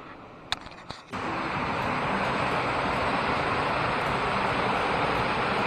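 A couple of faint clicks, then from about a second in a steady rushing of water in a creek's cascades.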